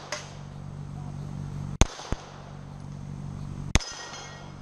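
Two loud pistol shots about two seconds apart, fired at a steel spinner target, with a smaller sharp crack just after the first; the second shot is followed by brief ringing of a struck steel plate.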